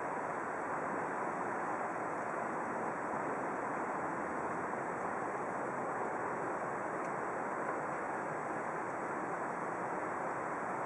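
Steady outdoor rushing noise with no distinct events, plus a faint steady high-pitched tone.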